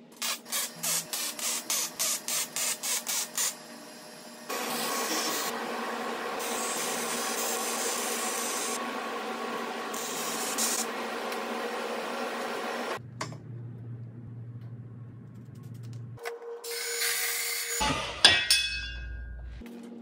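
Wire-feed (MIG) welder tack-welding steel square tubing. It starts with a quick run of short crackling blips, then a steady crackling weld lasting several seconds. After that comes a low hum and a few scattered knocks and clicks near the end.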